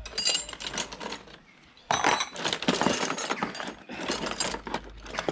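Ratchet tool clicking in quick runs as a small hex bolt on the thumb-throttle clamp of a Rebo quad's handlebar is tightened, pausing briefly about a second and a half in, then louder.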